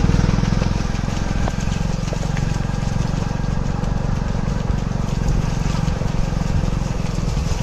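Small vehicle engine running steadily at a low, even speed: a dense low rumble with a fine throb that holds the same pitch throughout.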